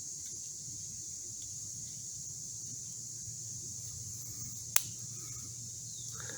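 Steady high-pitched drone of insects, with a single sharp click about three-quarters of the way through as the stiff multi-tool is worked.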